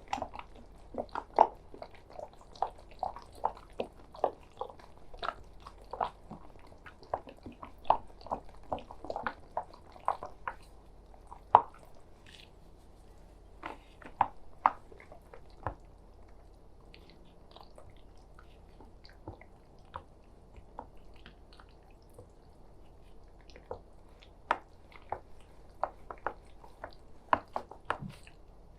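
Irregular wet, sticky clicks and squelches of raw chicken-nugget mixture being worked by hand. They come thick and fast at first, thin out to a near pause in the middle, then pick up again near the end.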